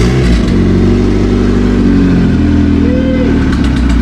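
Turbocharged Honda B20 VTEC inline-four running just after being started, its speed rising a little and then holding steady. A short tone rises and falls about three seconds in.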